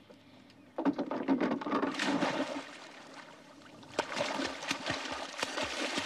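Water splashing hard in two bouts, the first starting about a second in and the second about four seconds in, each a dense run of sharp slaps and spatters.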